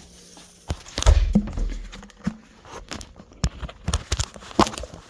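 A heavy thump about a second in, then a scattering of light clicks and knocks as items are handled and set down around a microwave.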